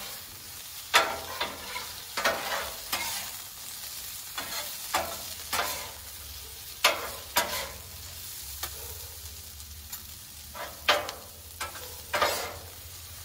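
Chicken thighs and stir-fry vegetables sizzling in peanut oil on a Blackstone griddle's hot steel top, a steady hiss, with spatulas scraping and clacking on the plate at irregular intervals as the vegetables are tossed.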